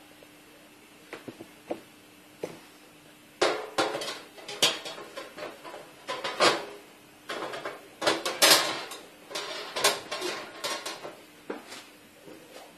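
Metal parts of a folding sheet-metal charcoal grill clattering and clanking as they are handled. It starts with a few light clicks, becomes a dense run of rattles and clanks for several seconds, then tails off into a few clicks near the end.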